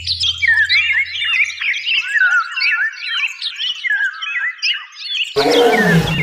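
Jungle birds chirping, many short calls overlapping. About five seconds in, a lion gives a single rough roar that falls in pitch.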